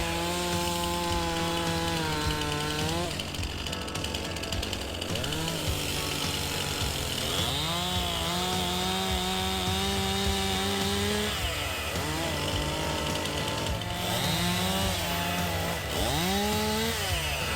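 Chainsaw engine revving up and held at high speed through cuts, dropping back off about three seconds in, again around eleven seconds, and near the end, with music underneath.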